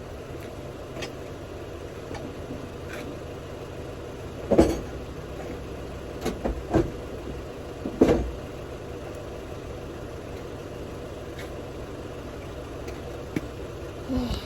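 Steady low outdoor rumble, with a few short knocks or thumps between about four and eight seconds in.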